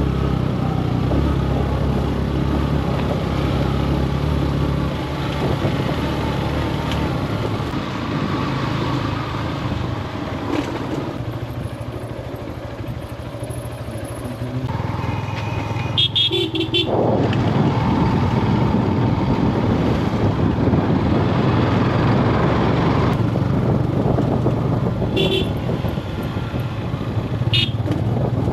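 Yamaha FZ-S motorcycle engine running steadily while riding a dirt track, easing off for a few seconds around the middle and then pulling again. A vehicle horn sounds about a second long, about 16 seconds in, with two short toots near the end.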